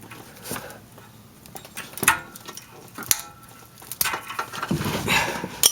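Metal hand tools clicking and clinking as they are handled, a few separate sharp clicks and then a busier stretch of clinks and rustling near the end.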